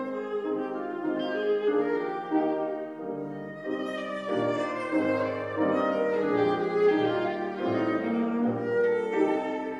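Classical chamber music: a bowed string instrument plays a melody over piano, with deeper bass notes coming in about four seconds in.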